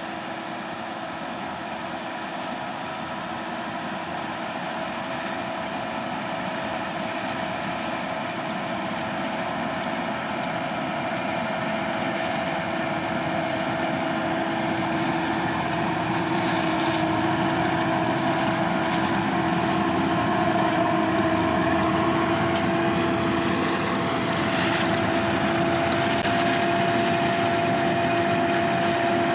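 Forage harvester chopping barley for silage, heard from inside the cab: a steady engine and chopper drone with a held whine. It grows louder and the whine climbs slightly in pitch.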